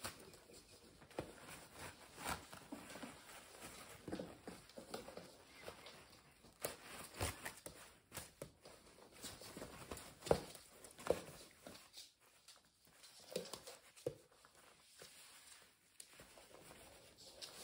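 Eurasier puppies at play: irregular scuffling, claws clicking on the floor and toilet paper rustling and tearing, with a few short puppy grunts.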